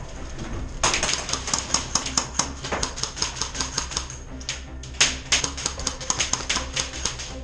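Airsoft guns firing rapid strings of shots: sharp, irregular clacks in two runs, with a short break after about four seconds.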